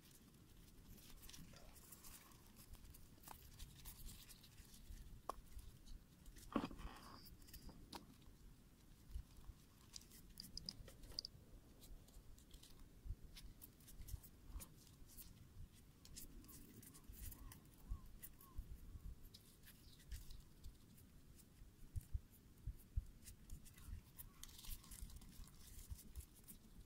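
Near silence, broken by faint scattered clicks and crackles and one brief louder rustle about six and a half seconds in.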